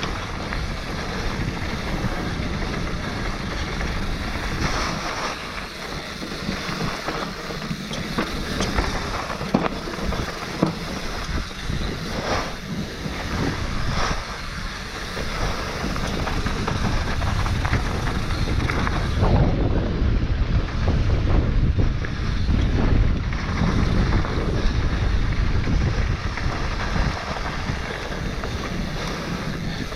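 Mountain bike descending a rough dirt trail at speed: a continuous rush of wind noise on the microphone and tyres on dirt, with frequent sharp clattering knocks from the bike over rough ground. The low rumble grows heavier about two-thirds of the way through.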